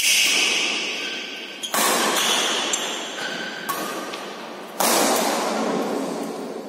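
Badminton rackets striking the shuttlecock in a doubles rally: three loud, sharp hits, at the start, about two seconds in and about five seconds in. Each rings out in the hall's long echo, with fainter taps between.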